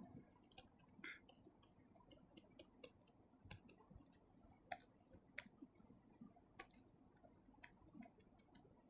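Near silence broken by faint, scattered sharp clicks and ticks, irregular, about one or two a second.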